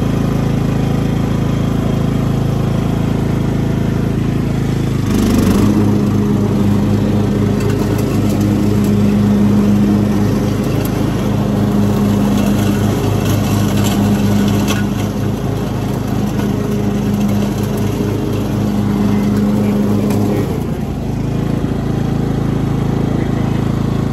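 Riding lawn mower engine running steadily just after a start on choke. About five seconds in it settles into a steadier, deeper hum that holds until about twenty seconds in, then goes back to its earlier sound.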